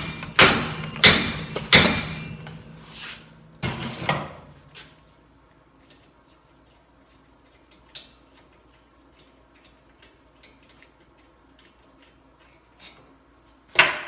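Hammer blows on steel: about three hard strikes in the first two seconds and a few lighter ones around four seconds in, knocking a seized wheel hub out of a 2012 Ram 2500 as it starts to give. After that, only faint clinks of tools, then one loud clank near the end.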